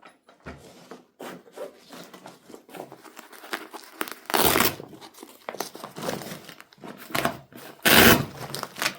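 Crinkling and rustling as something like paper or plastic wrapping is handled, with two louder crackles or rips, one about four seconds in and one near the end.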